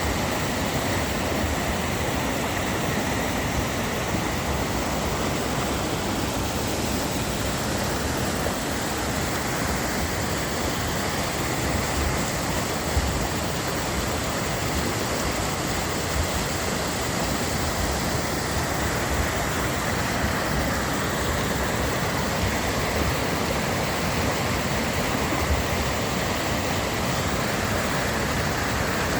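Steady, even rushing noise of an outdoor scene, unchanging throughout, with a few faint low thumps.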